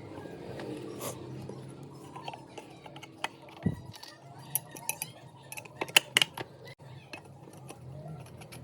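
Scattered sharp metallic clicks and clinks, a cluster of the loudest about six seconds in, over a faint steady low hum.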